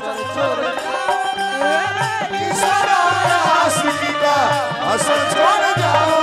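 Folk stage music played between sung lines: a harmonium's held chords and melody over a steady rhythm of low hand-drum strokes.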